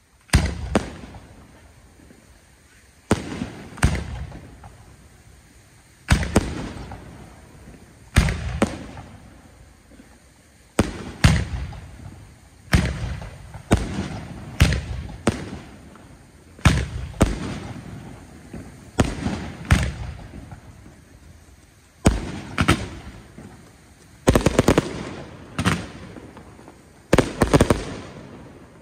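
Aerial firework shells bursting in a string of sharp booms, one every second or two, each dying away in a rolling echo. Near the end several go off in quick runs of rapid bangs.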